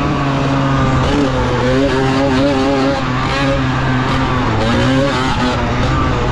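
Tuned Balkan 50 moped's single-cylinder two-stroke engine revving hard under racing load, its pitch rising and falling repeatedly with the throttle and gear changes.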